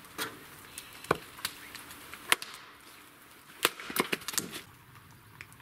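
Hatchet chopping short firewood logs on a wooden chopping block: a series of sharp, uneven chops with smaller knocks of wood among them, the two loudest strikes near the middle.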